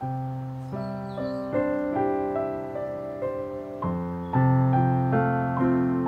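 Background piano music: gentle chords and melody notes, each struck and left to fade.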